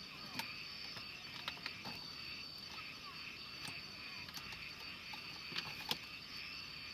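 Night chorus of crickets and other insects: a steady high trill over a lower chirring. Scattered light clicks and taps, the two loudest close together near the end.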